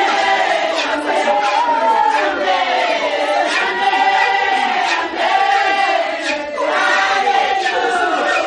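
A congregation singing and chanting together, many voices overlapping, with shouts among them.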